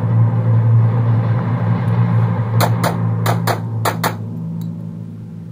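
Six pistol shots fired as three quick double taps within about a second and a half, the pairs coming close together, over a steady low hum.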